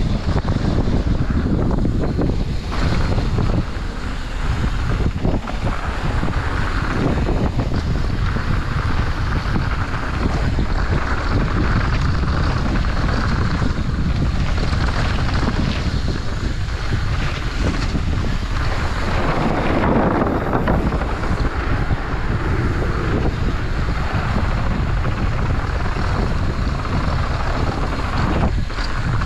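Wind buffeting a helmet or chest-mounted GoPro's microphone as a mountain bike rolls fast down a bike-park trail: a steady, loud rumble with a shifting hiss from the riding underneath.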